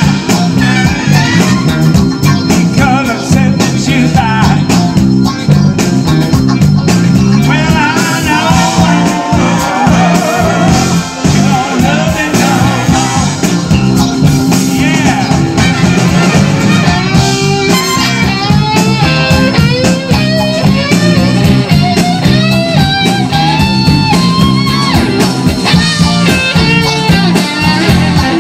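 Live rock band playing a blues-rock song: electric guitars, bass guitar and drums, with a voice singing a wavering melody over them from about eight seconds in.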